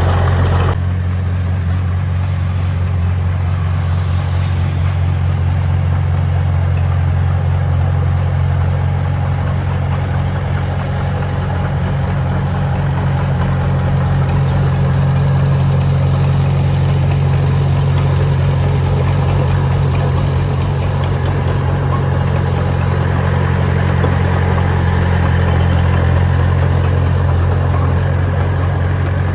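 Heavy construction machine's diesel engine running steadily, a deep unbroken drone.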